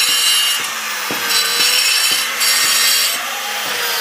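Electric power cutter cutting slate stone, a high-pitched grinding with a steady motor whine that swells and eases as it works through the stone.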